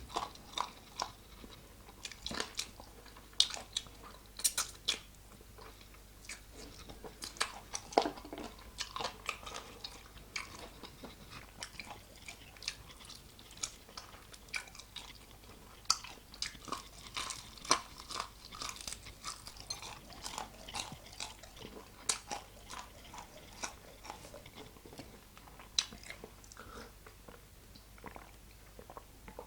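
Close-miked chewing and biting into crispy fried chicken wings, with irregular crunches and wet mouth clicks.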